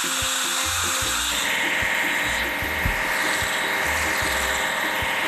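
Cartoon cleaning sound effect: a steady mechanical hiss like a power tool running, which picks up a steady high whine about a second and a half in. Background music with a simple melody and a regular bass beat plays under it.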